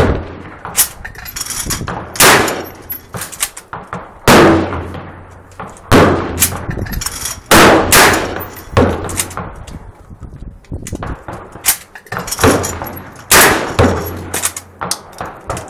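Repeated 12-gauge blasts from an Akdal MKA 1919 semi-automatic shotgun fired at clay targets, each shot with a ringing echo, about a dozen at irregular intervals, some in quick pairs.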